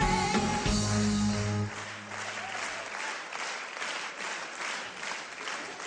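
A short burst of music with a strong held low note that stops about a second and a half in, followed by audience applause, clapping in a steady rhythm.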